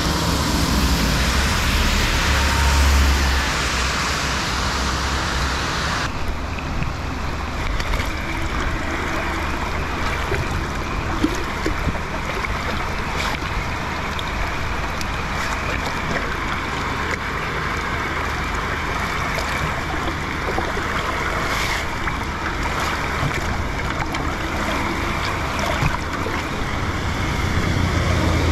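Steady rain falling on a flooded street, with muddy rainwater running along the curb gutter, over a low rumble. About six seconds in, the hiss turns duller and stays that way.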